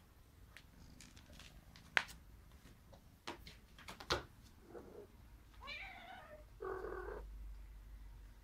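Birman kittens playing on a cat tree: a few sharp knocks, then a kitten gives two short cries about six and seven seconds in.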